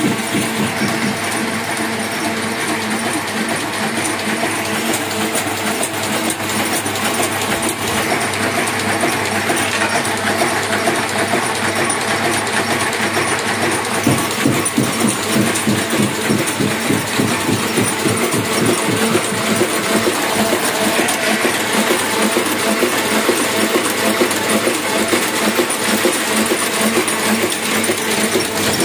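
Hamada 600 offset printing press running: a steady, fast mechanical clatter of its rollers and sheet-feeding mechanism.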